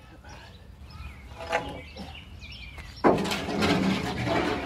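A wooden board scraping and sliding across the bed of a pickup truck, starting suddenly about three seconds in and running for over a second. Faint bird chirps before it.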